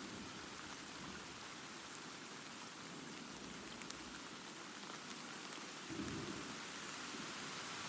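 Steady rain with a low roll of distant thunder, the rumble swelling about six seconds in.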